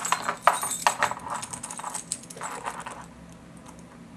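Small metal clicks and jingles of a thin warded pick being worked in the keyway of a Master Lock No. 22 warded padlock, densest in the first second or so and thinning out after about three seconds. This shorter pick fails to turn the lock.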